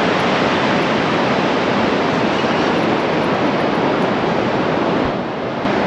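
Surf breaking on the shore: a steady, loud rushing wash of white water that eases briefly near the end.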